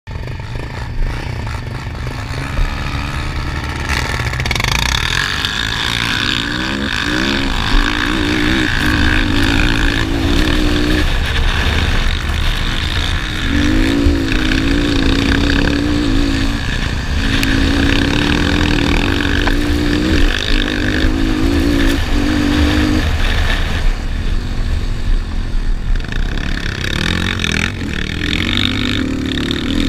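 Yamaha Raptor 250 quad's single-cylinder four-stroke engine run hard in a race, its pitch climbing through the gears and breaking off at each shift, over a heavy rumble of wind on the microphone.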